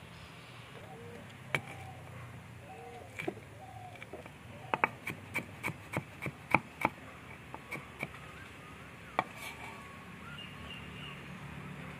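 Large kitchen knife chopping ginger on a wooden cutting board: a few single knocks, then a quick run of about nine chops, then a few more strikes.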